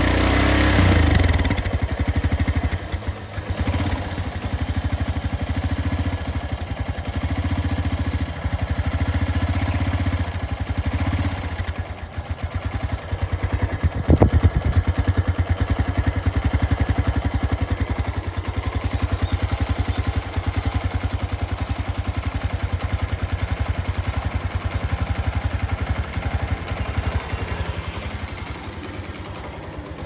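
Suzuki GD110S motorcycle's single-cylinder four-stroke engine idling, heard at the exhaust silencer as a steady, even putter. It is briefly louder about fourteen seconds in.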